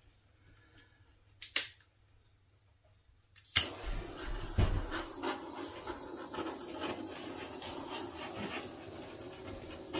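Small handheld torch: a click about a second and a half in, then it lights with a sharp pop about three and a half seconds in and hisses steadily as its flame is passed over wet acrylic paint to bring up and pop air bubbles.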